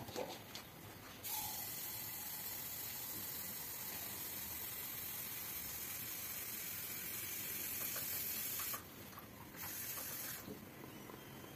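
Kitchen tap running steadily for about seven seconds, filling a container with water, then shut off; a short second run follows about a second later.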